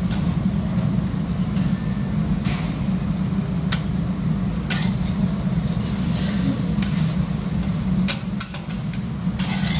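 Metal spatula-scrapers clicking and scraping on a steel griddle as an omelet is folded, a few scattered strikes and then a quick cluster near the end, over a steady low hum.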